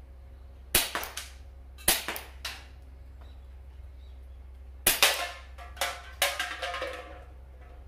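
Marushin gas blowback Nambu Type 14 airsoft pistol firing five single shots at uneven intervals: two about a second apart, a pause of about three seconds, then three more in quick succession. Each sharp crack of gas and slide is followed by lighter clacks. The owner says the pistol is slightly prone to malfunctioning.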